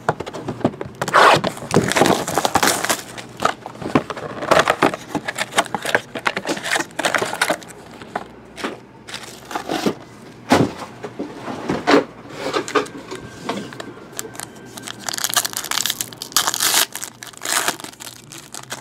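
A sealed trading-card box and its foil card packs being opened by hand: irregular crinkling, crackling and tearing of wrapper, cardboard and foil, with sharper tearing near the end.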